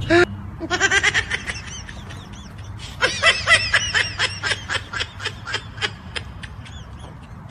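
A person laughing in two bouts of quick, high-pitched giggles, several pulses a second.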